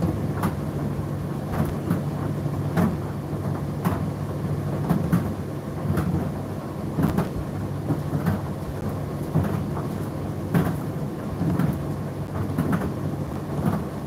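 Indesit IDC8T3 condenser tumble dryer running mid-cycle: a steady motor and fan hum with the drum turning, and light knocks about once a second.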